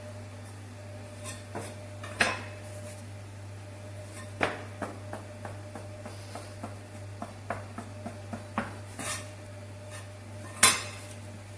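Fork and kitchenware clinking and knocking as gnocchi are worked by hand: a run of light taps with a few louder knocks, the loudest near the end.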